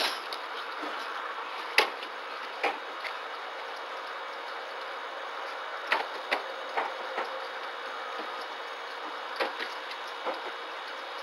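Scattered small taps and clicks as a small monkey moves about its wire cage, over the steady hiss of a security camera's microphone. The taps come singly and in small clusters, about ten in all.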